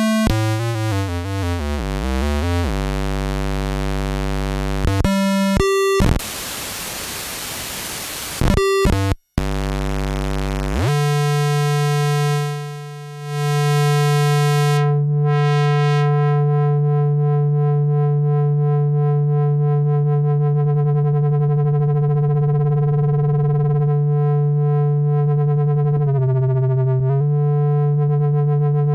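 Yamaha CS01 analog monosynth played on its own: a few warbling notes with a wobbling pitch, then low held bass notes and a couple of seconds of white noise. After a short drop-out it slides quickly up into one long, steady held note that dips briefly in pitch twice near the end.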